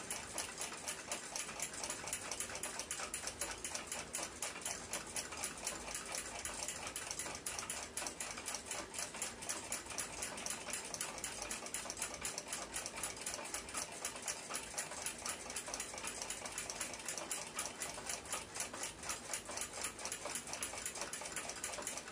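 A clock ticking fast and evenly, several ticks a second.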